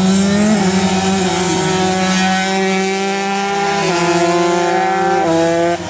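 Two-stroke 125 cc underbone race motorcycle engine running hard at high revs, its pitch dropping in short steps about four and five seconds in.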